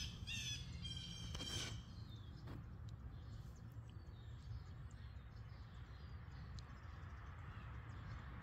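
Quiet outdoor yard ambience: a few high bird chirps in the first two seconds, then a steady low background hum with faint scattered ticks.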